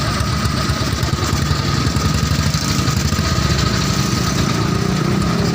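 BSA 350 cc single-cylinder motorcycle engine running steadily at low revs, with fast, even exhaust beats and a faint steady high whine along with it.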